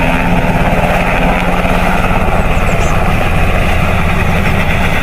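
Sikorsky HH-60 Pave Hawk helicopter flying low and close: fast, even rotor-blade chop over the steady run of its turbine engines.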